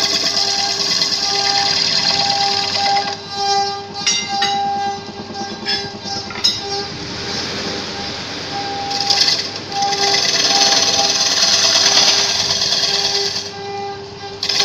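Belt-driven wood lathe running while a long gouge cuts a spinning wooden disc: a loud hissing shear of the cut over a steady motor hum. The cutting eases off for a few seconds about three seconds in and again just before the end.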